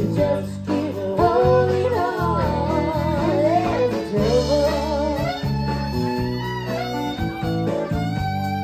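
Live country band playing: strummed acoustic guitar and fiddle, with a woman singing at times.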